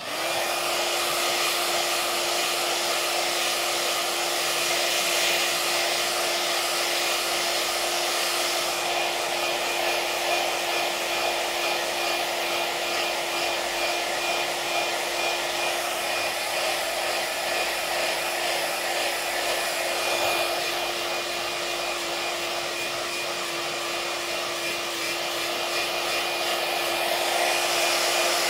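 iTeraCare handheld terahertz wand switching on and running with a steady, hair-dryer-like whoosh and a steady hum underneath.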